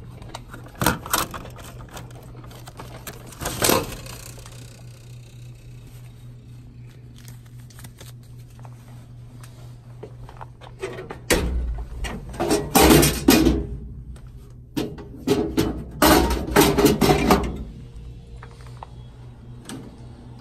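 Snack vending machine being opened and serviced: a few sharp clicks near the start, then two spells of rattling and clattering handling in the second half, over a steady low hum.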